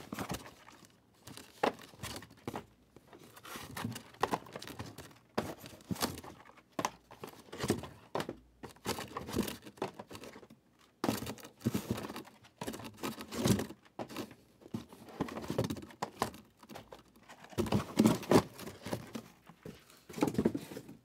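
Hands handling cardboard boxes and packaging on a table: irregular knocks and taps with bits of crinkling, broken by short quiet gaps.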